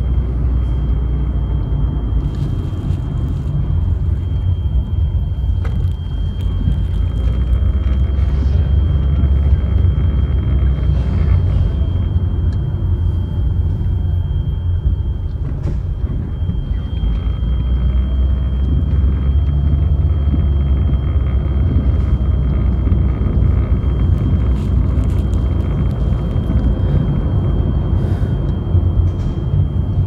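Steady low rumble heard from inside a moving car: road and engine noise mixed with the strong dust-storm wind against the car.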